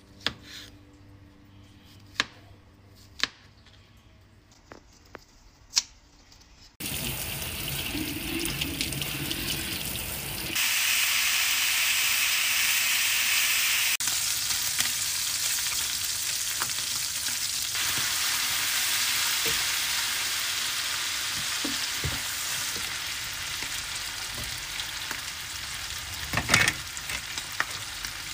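A few sharp knife chops through mushrooms and green pepper on a cutting board, then, about seven seconds in, sliced pork belly sizzling in a hot frying pan, with a brief clatter of the utensil in the pan near the end.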